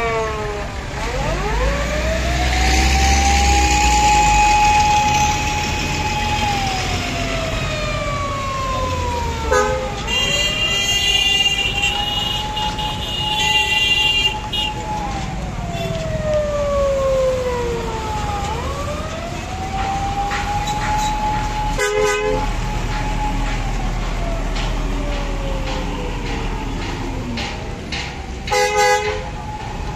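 A siren wailing, rising, holding and falling slowly about every nine seconds, over the low rumble of heavy truck traffic. Short vehicle horn blasts cut in around the middle and again near the end.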